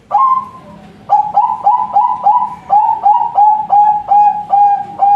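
Zebra dove (perkutut) singing: one opening coo, then, after about a second, a rapid string of short rising coos, about three a second, the later notes drawn out longer.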